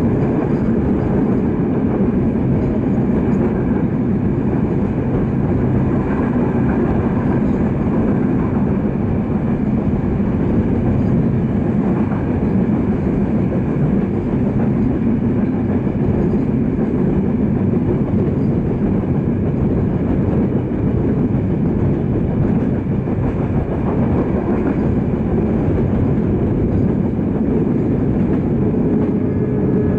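Passenger train running along the line, heard from inside a PT INKA-built coach: a steady, loud rumble of the wheels on the rails.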